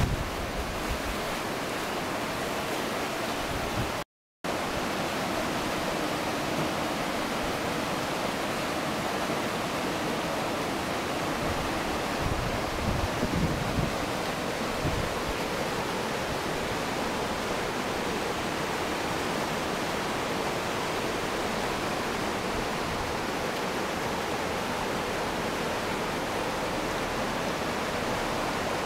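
The Hérault river in spate, rushing fast and turbulent over rocks and past the embankment walls: a steady, dense sound of rushing water. The sound drops out for a moment about four seconds in, and a few low bumps break in around the middle.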